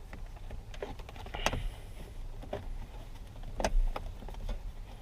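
Plastic steering-column trim being worked into place by hand, with scattered clicks and knocks as the pieces are pushed and snapped together. The loudest knock comes about three-quarters of the way in.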